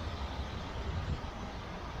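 City street traffic noise: a steady low rumble from a passing vehicle that eases off, over a general hum of the street.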